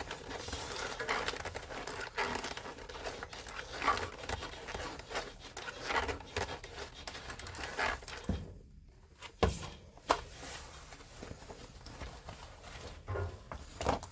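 Irregular rustling and crinkling handling sounds in a small room, with a quieter moment a little past eight seconds and two sharp knocks shortly after.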